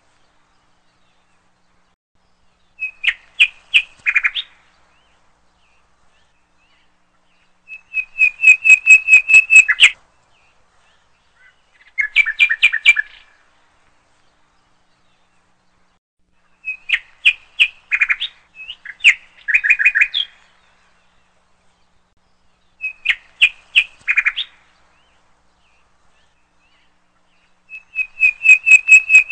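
A songbird singing short phrases of rapid, repeated chirping notes, about seven phrases in turn with pauses of a few seconds between them.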